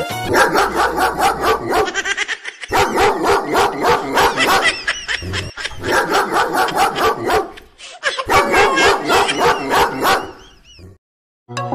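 Recorded dog barking played through a Bluetooth speaker: rapid, dense barks in about four bursts of two seconds or so each, breaking off near the end.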